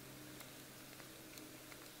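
Near silence: faint room tone with a low steady hum and a couple of faint light ticks.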